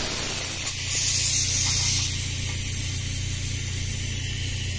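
Pressurised air hissing out of a car A/C system through the gauge hose as the leak-test pressure of about 300 is let off, strongest in the first two seconds and then easing. A steady low hum runs underneath.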